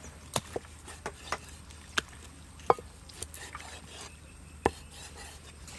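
Large kitchen knife cutting raw meat on a thick wooden chopping board, the blade knocking on the wood in several sharp, irregularly spaced strikes.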